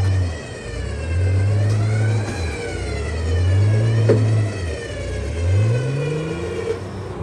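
Engine of a 4x4 stuck in snow, revved up and let down in repeated surges about every two seconds as the driver tries to drive it out, with a whine that rises and falls with the revs.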